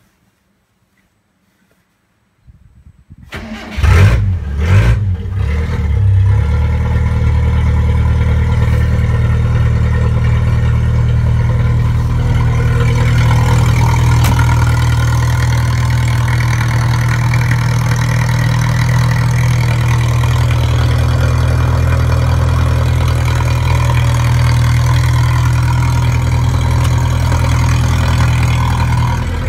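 Mitsubishi Pajero's 4G54 2.6-litre four-cylinder engine, running with no exhaust fitted. It starts about three seconds in, catches with a couple of quick revs, and then settles into a loud, steady idle.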